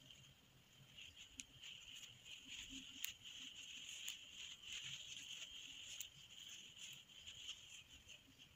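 Faint handling sounds of a steel crochet hook working thread into cloth: light rustling with a few small sharp clicks, the loudest about three seconds in, over a steady faint high-pitched background hiss.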